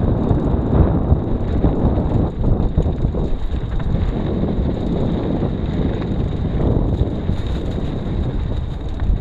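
Wind buffeting the microphone of a moving camera: a loud, steady rumble with scattered rattles.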